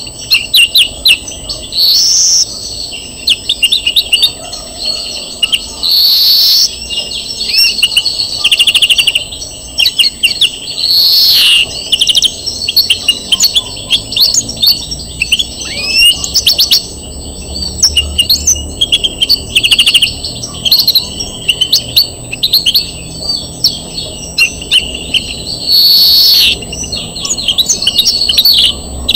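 European greenfinch singing: fast twittering trills and chirps, broken several times by long, drawn-out buzzy notes.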